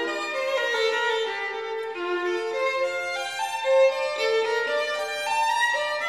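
Background music led by a violin playing a melody, a new note about every half second.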